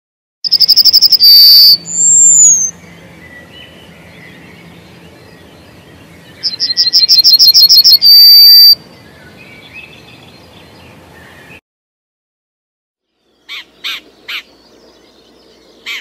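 Yellowhammer singing twice, each song a fast run of repeated high notes ending in a long drawn-out note. Near the end, after a short silence, a few brief sharp bird calls.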